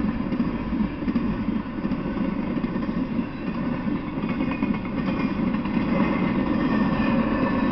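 Intermodal freight train rolling past, a steady rumble of steel wheels on the rails.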